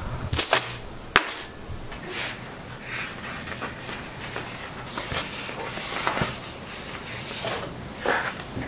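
Sheets of printed sticker paper being handled and leafed through, with soft rustles every second or so. Two sharp knocks in the first second and a bit, the second one the loudest sound.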